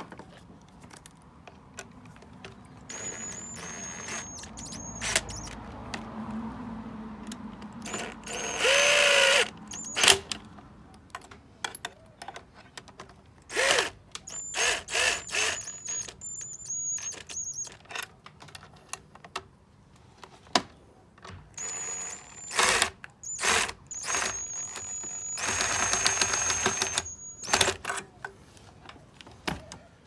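DeWalt cordless drill running in several short bursts, driving screws into the dishwasher's plastic pump housing, its motor whine rising at the start of each run. Between the runs come short clicks and rattles of screws and parts being handled.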